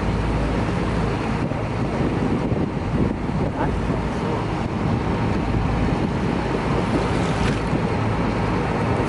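Steady wind buffeting the microphone over the wash of open-sea water against a boat's hull.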